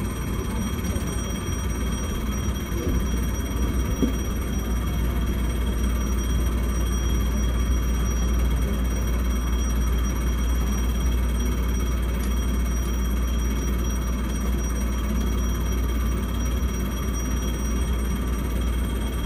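Electric commuter train heard from inside the driver's cab, creeping slowly to a stop at a terminal platform: a steady low rumble with several thin, steady high-pitched tones.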